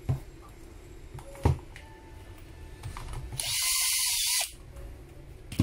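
Cordless drill/driver running for about a second, backing a screw out of the plastic housing of an impact drill. A few short handling knocks come before and after it.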